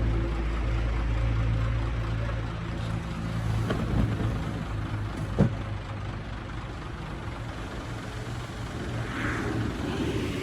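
Heavy construction machine's diesel engine running steadily, with two sharp knocks about four and five and a half seconds in.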